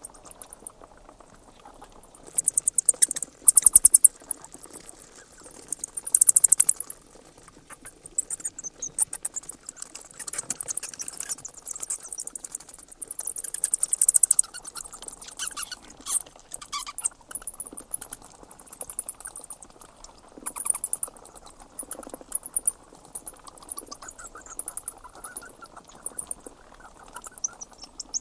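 Bats squeaking in rapid high-pitched bursts, each a quick run of tiny clicks and squeaks, coming and going every second or two over a faint steady hiss.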